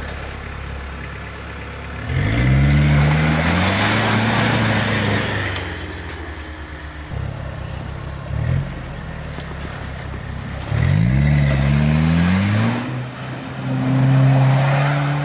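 Mitsubishi Pajero's 2.5-litre turbodiesel engine revving hard under load as it pushes through snow and mud. The revs rise twice for a few seconds each, about two seconds in and again about eleven seconds in, with a short blip in between.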